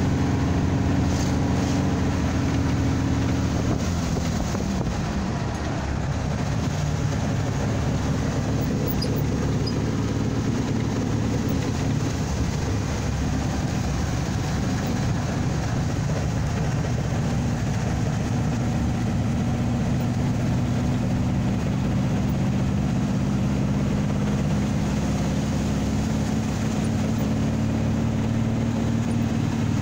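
Dune buggy engine running steadily on the move, with wind and road noise; the engine note drops about four seconds in and climbs again in the second half.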